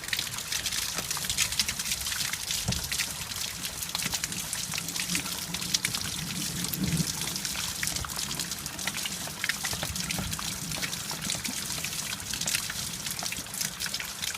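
Water running steadily through a simple DIY rainwater-harvesting setup, trickling and splashing with many small drops.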